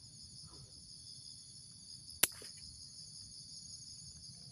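A single sharp snip of scissors cutting through a small branch of a bonsai stock, about two seconds in, over a steady high chirring of insects.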